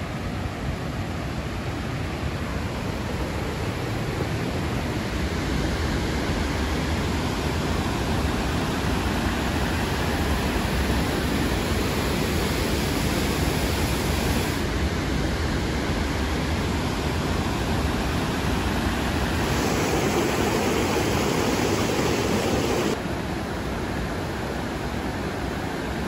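Steady rush of the Krka River's waterfalls and cascades. The rush changes abruptly in tone and loudness about three times: at about 15, 20 and 23 s.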